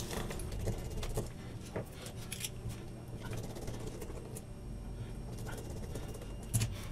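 Soft, scattered clicks and taps of small-parts handling as a kids' smartwatch phone is closed up, with a precision screwdriver on its back cover and the plastic case being pressed together. A slightly louder knock comes near the end.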